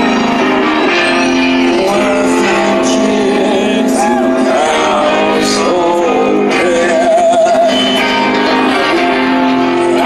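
Live rock band playing loudly, with a male voice singing a wavering sustained line over electric guitars, heard from far back in the audience.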